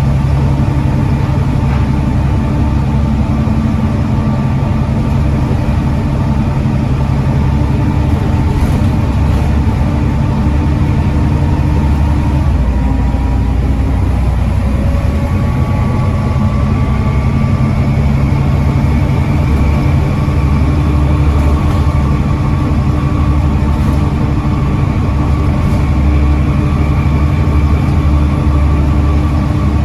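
Volvo B7TL double-decker bus running, its 7.3-litre Volvo D7C diesel engine and ZF Ecomat gearbox giving a steady drone with a whine above it; the engine note changes about twelve seconds in and again a few seconds later.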